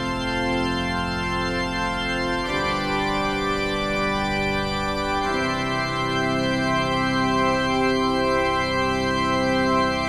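Music of sustained organ chords held without decay, the chord changing about two and a half seconds in and again about five seconds in.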